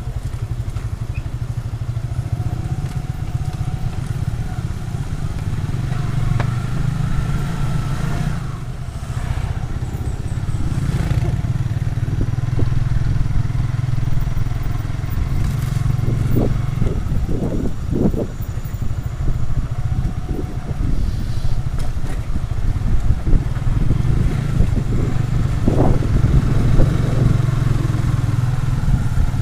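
Small-displacement sport motorcycle engine running steadily while riding, with a low continuous drone and a few brief clattering sounds partway through and near the end.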